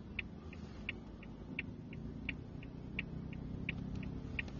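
Car turn-signal indicator ticking, about three ticks a second that alternate stronger and weaker, over the low hum of the car's idling engine, heard from inside the cabin.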